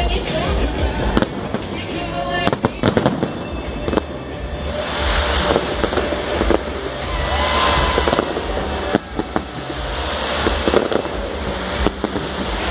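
Aerial fireworks display: sharp bangs of shells bursting every second or two, with spells of fizzing crackle about five and seven seconds in.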